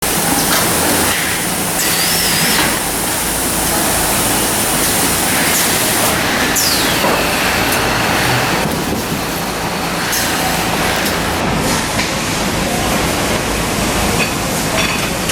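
Automated packing and polybag-sealing machinery running: a steady loud rush of machine noise with scattered clicks, a brief wavering squeal about two seconds in and a falling whistle about six seconds in.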